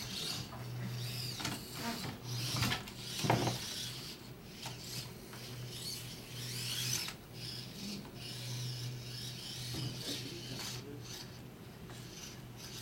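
Small servo-driven robot with plastic wheels crawling over a plywood board and its wooden slats: wheels scraping and rubbing on the wood, with a few knocks in the first few seconds and a low servo hum that comes and goes.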